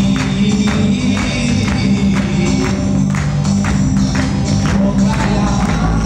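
Live band playing upbeat dance music on electric keyboards and bass guitar over a steady beat.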